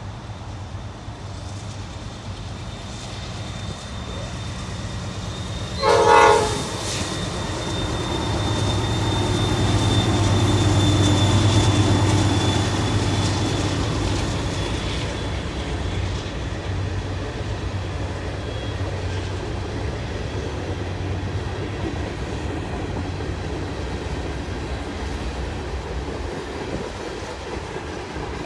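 A freight train led by GE C40-9W diesel locomotives passes. A short horn blast sounds about six seconds in, the locomotives' rumble is loudest a few seconds later, and then the freight cars roll steadily by with a clickety-clack of wheels over rail joints.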